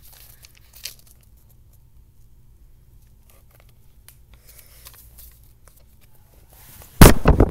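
Handling noise from a lined notebook page held right up to a computer's built-in microphone: faint paper rustles and clicks, then a very loud scraping rub near the end as the paper or hand brushes against the microphone.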